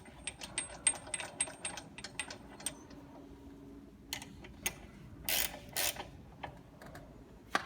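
Ratchet wrench clicking quickly and evenly as it turns a reverse-threaded bolt on a gauge wheel adjustment to tighten it, followed by a few louder metallic clanks.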